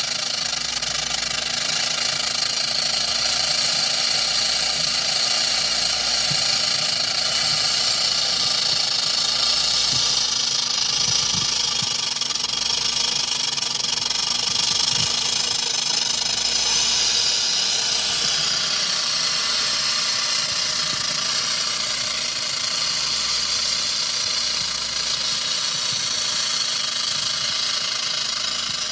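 Diamondback rattlesnake shaking its tail rattle in a warning display: a continuous high, dry buzz that holds steady and eases slightly in the last few seconds.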